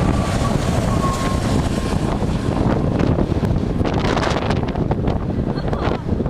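Strong gale-force wind buffeting the microphone: a dense, steady rumble with brief gusty crackles in the middle and near the end. A faint steady high tone sounds under it in the first two seconds.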